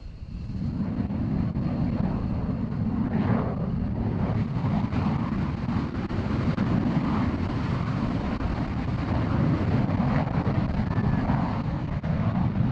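F-16 fighter's single turbofan engine throttling up for takeoff: a loud, steady rumble that comes in abruptly about half a second in as the jet starts its takeoff roll.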